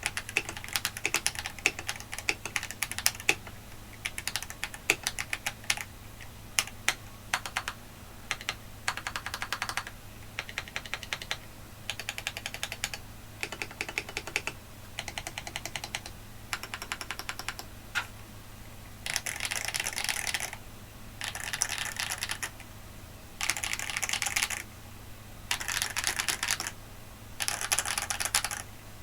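Typing on a KBD67 Lite R3 mechanical keyboard fitted with stock Feker Holy Panda tactile switches. It begins with separate keystrokes. From a little past the middle there are five bursts of rapid key presses, each about a second and a half long, with short pauses between them.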